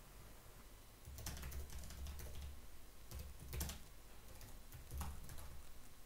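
Computer keyboard being typed on: a run of faint, irregular key clicks starting about a second in, as a command is entered.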